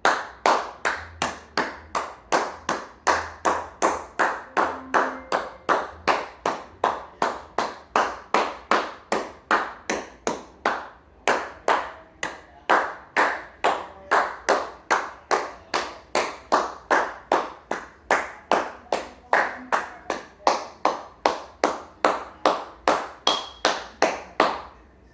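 Hand clapping in a slow, steady rhythm of about two claps a second, each clap distinct rather than blended into crowd applause, welcoming a comedian on stage. It stops shortly before the end.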